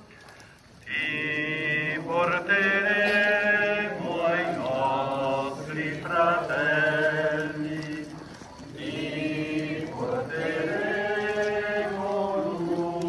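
Voices singing a processional hymn in long held notes. The singing resumes about a second in after a brief pause and dips again near the middle. A steady low hum runs underneath.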